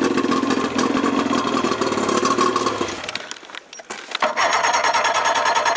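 Evinrude two-stroke outboard motor running just after a cold start, out of the water on its trailer. Just past three seconds in, the sound drops away for about a second, then the motor is heard running steadily again.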